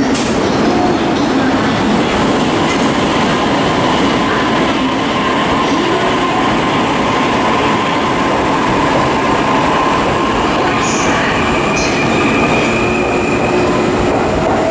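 JR electric commuter trains running through the station: a steady rumble of wheels on rail, with a steady motor tone and a few brief high wheel squeals around eleven to twelve seconds in.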